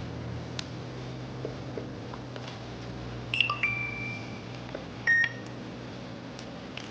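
Electronic checkout beeps from a point-of-sale terminal: a quick run of tones at different pitches about halfway through, then one loud short beep a little later, over a low steady hum.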